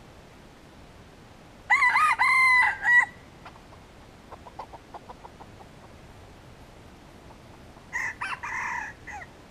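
Red junglefowl rooster crowing twice: a loud crow about two seconds in and a quieter, shorter one near the end, with a run of soft clucks in between.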